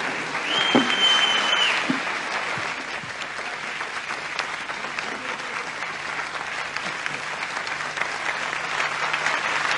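Audience applauding steadily. About half a second in, a single high steady tone sounds for about a second. The clapping eases a little midway and grows louder again near the end.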